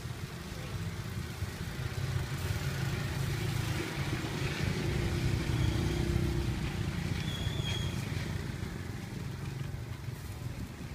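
Low rumble of a vehicle engine running nearby, swelling about halfway through and easing off toward the end, over outdoor background noise.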